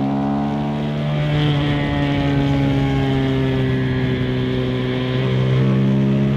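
Single-cylinder engine of a 2025 KTM 390 SMC-R supermoto, breathing through a Stage 2 DNA intake filter, pulling steadily in gear. Its pitch holds nearly even and creeps up slightly.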